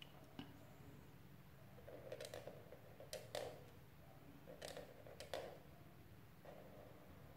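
Faint scratching of a felt-tip marker drawing on paper in a few short strokes, about two, three and five seconds in, over a low steady hum.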